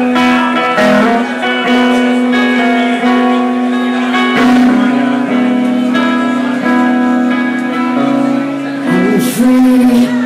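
Music: a guitar played along with held, sung tones that change pitch every second or so.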